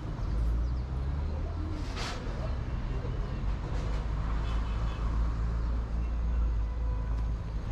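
City street traffic: a steady low rumble of passing vehicles, with a single sharp click about two seconds in.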